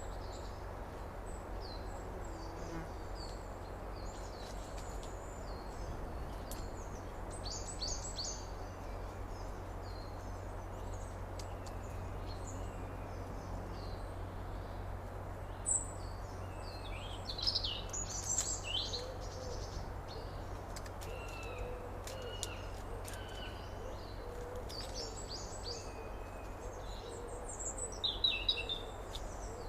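Summer outdoor ambience: birds chirping and twittering in scattered clusters, loudest a little past the middle and again near the end, over a steady low rumble and hiss. A lower wavering call repeats through the second half.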